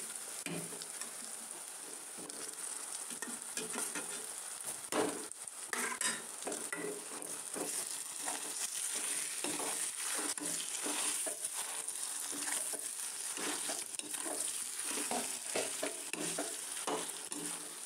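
Mashed boiled potato being stirred into onion-garlic-chilli masala frying in oil in a metal kadai. A steady sizzle runs under repeated scrapes and knocks of a perforated metal spatula against the pan.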